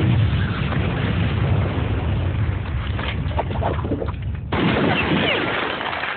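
An explosion's boom with a long, low rumble lasting about four and a half seconds, cut off abruptly by a different noisy sound.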